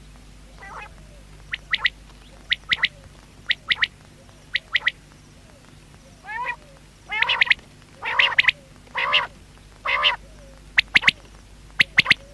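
Common quail calling: groups of two or three short, sharp, high notes, about one group a second. Lower, rougher nasal notes come in between, several in a row in the middle of the stretch.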